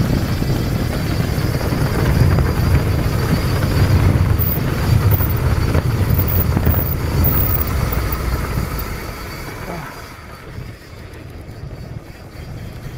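Wind buffeting an action camera's microphone as a mountain bike rolls down a dirt fire road, with tyre noise on the gravelly surface: a loud, steady low rumble that eases off about ten seconds in.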